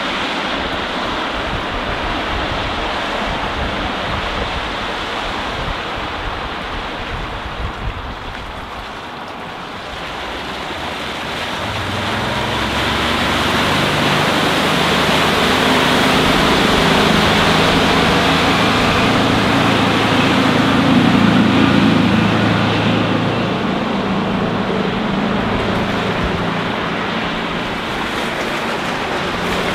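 Wind buffeting the microphone, then the diesel drone of the Finnmaster 7050's Volvo Penta D3 190 five-cylinder engine as the boat runs past at speed. The drone swells from about twelve seconds in, is loudest about two-thirds of the way through, then eases, over a steady hiss of wake and water.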